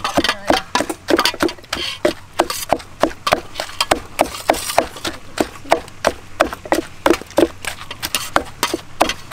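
Wooden pestle pounding chopped garlic and yellow herb paste in a wooden mortar: steady, evenly spaced thuds about three a second.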